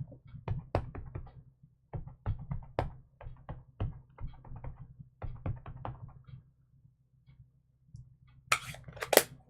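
A quick run of light taps and clicks as stamping supplies are handled on a craft table, then a lull and two or three louder rustling scuffs near the end.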